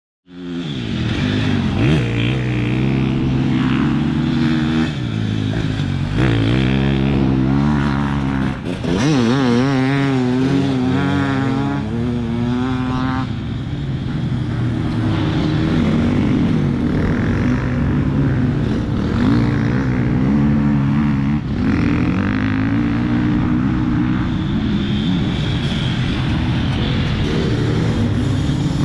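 Off-road enduro motorcycle engine running hard, its pitch rising and falling as the throttle is worked, with a quick wavering of the revs about nine to thirteen seconds in.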